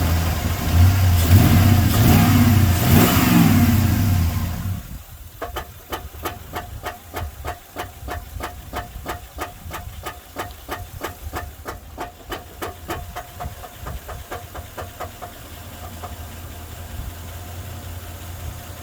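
Chevy 5.3 V8 engine revving up and down, then at about five seconds it drops back and a heavy, evenly spaced knocking, about four knocks a second, takes over for some ten seconds before fading out. The owner suspects a broken crankshaft, a broken flywheel or flexplate, or loose torque converter bolts.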